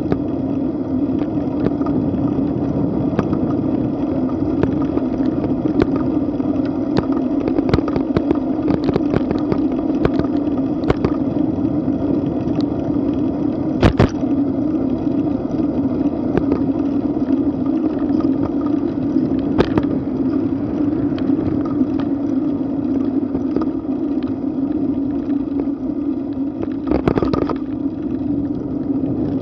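Bicycle riding on a paved path, heard from a camera mounted on the bike: a steady rumble and hum of the ride with sharp knocks and rattles from bumps. The loudest knock comes about halfway through, and a cluster comes near the end as the bike rolls over the street crossing.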